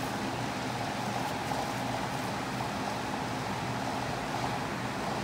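Steady background noise: a constant hiss with a faint hum, with no distinct events.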